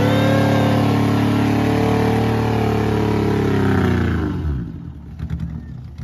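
1976 Toyota Corolla's engine revving hard and held high as the car drives out of the mud. The revs fall away about four seconds in, and it runs on much quieter.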